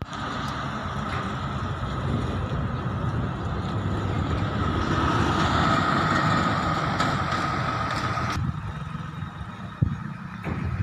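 Highway traffic: a heavy truck driving past, its engine and tyre noise with a steady whine growing louder toward the middle, then dropping away suddenly a little after eight seconds.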